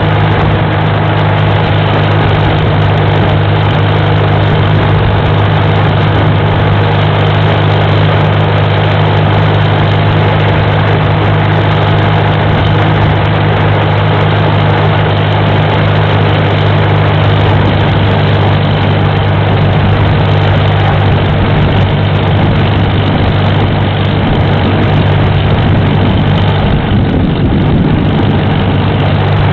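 Farmall tractor engine running steadily as the tractor drives along the road, a loud even drone with a deep steady tone, heard from the seat just behind the upright exhaust stack.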